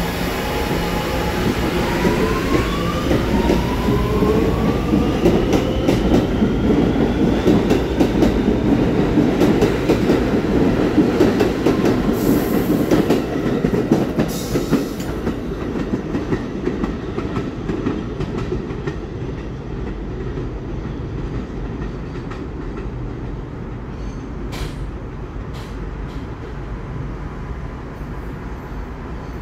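New York City subway train pulling out of the station. Its motors whine, rising in pitch as it accelerates over the first few seconds, then the wheels rumble and clatter on the rails, loudest midway, before the sound fades as the train moves away.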